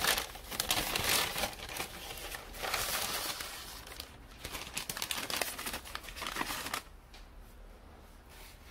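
Brown paper bag crinkling and rustling in repeated bursts as it is handled and opened, dying down about two seconds before the end.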